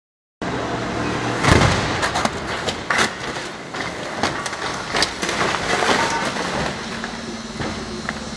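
Police stunt car being flipped and crashing onto the road: a run of heavy bangs and metal clattering, the loudest about a second and a half in and more near three and five seconds. A steady hum comes in near the end.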